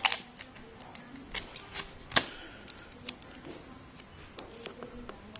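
Scattered light clicks and taps from hands working scotch tape around an opened iPad, with the sharpest click about two seconds in.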